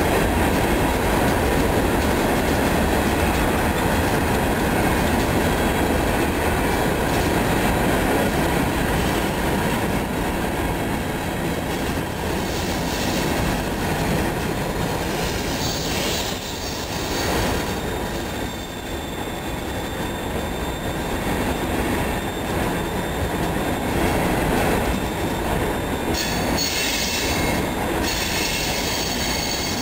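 Freight train of hopper cars rolling past, a steady rumble of wheels on rail with some clacking. High-pitched wheel squeal rises at about 13 and 16 seconds in, and again more strongly near the end.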